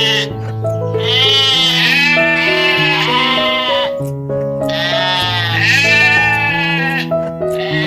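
Bleating, in about three long, wavering calls, over steady background music.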